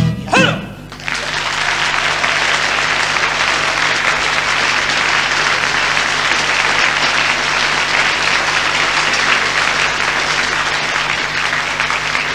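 An audience applauding steadily from about a second in, after a brief closing note at the end of a song.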